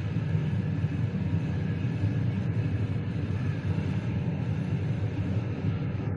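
Passenger train running at speed, heard from aboard: a steady rumble of wheels on the rails.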